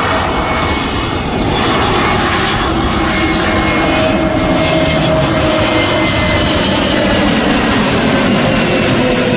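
Airbus A320 jet airliner landing, its engines running loud and steady with faint whining tones that slowly fall in pitch.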